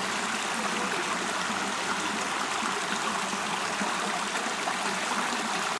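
Steady rush of flowing water from a stream, an even, unbroken sound.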